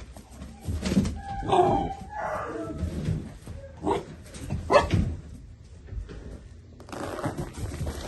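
Two-month-old Central Asian Shepherd (alabai) puppies barking and yelping in a string of short, separate calls, the sharpest about four and five seconds in.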